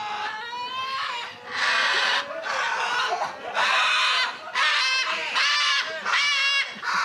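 Parrots screeching: a run of loud, harsh squawks, a little more than one a second, turning more pitched and rasping toward the end.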